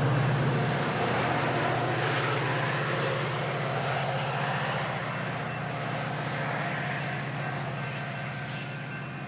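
Diesel locomotive of a passenger train running with a steady low rumble and rail noise, slowly fading as the train moves away.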